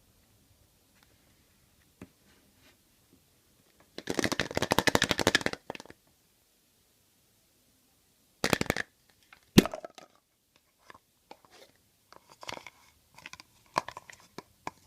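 Foil wrapper of a chocolate surprise egg being crinkled and torn in a rapid crackle lasting about a second and a half, then a short rustle and one sharp crack, followed by scattered small clicks and rustles of handling.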